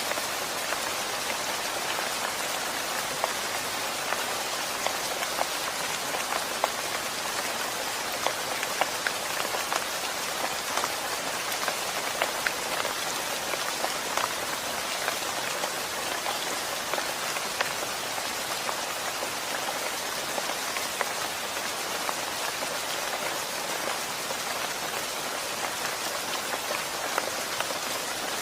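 Steady rain falling, a constant hiss dotted with many sharp individual drop ticks.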